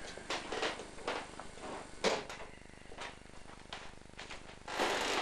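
Wooden door being handled: irregular knocks and clicks, two or three a second, with a short rushing scrape near the end.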